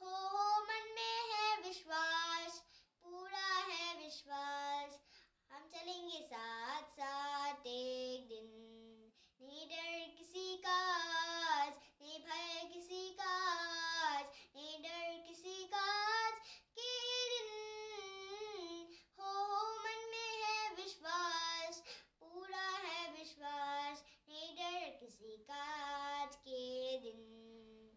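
A young child singing solo and unaccompanied, in phrases of held, sliding notes with short pauses for breath between them.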